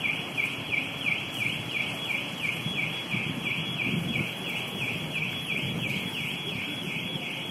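An electronic alarm chirping in a steady repeating pattern, about three sweeping chirps a second, over a low background rumble.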